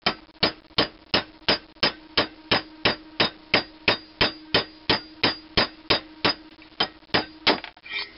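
Hammer tapping steadily on a driver rod, about three strikes a second, pushing a sizing ball through a thin-wall bronze valve guide liner in an International Harvester cylinder head to size the liner's bore. A steady hum runs underneath.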